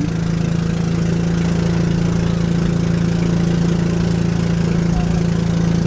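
Engine of a motorized outrigger boat running steadily while under way, an unbroken low drone.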